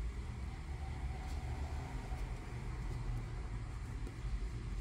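Steady low background rumble with a faint even hiss, with no distinct events.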